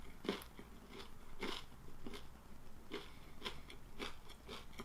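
Close-miked chewing of a dry, crunchy churro: irregular crisp crunches, roughly one to two a second.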